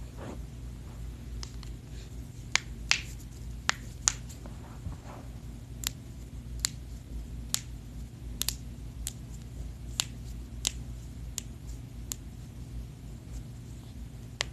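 Human joints cracking: a series of sharp, irregular pops, about twenty in all, the loudest ones in the first few seconds and fainter ones spaced about a second apart afterwards.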